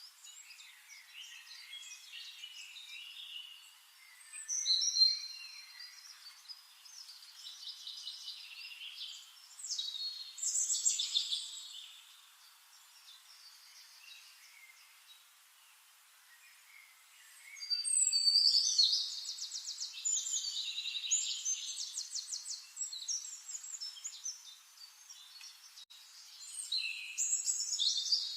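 Songbirds singing in a forest: bursts of high chirping and fast trilled phrases, loudest about five seconds in, around ten to twelve seconds, in a long run from about eighteen to twenty-four seconds, and again near the end, with quieter spells of faint chirps between.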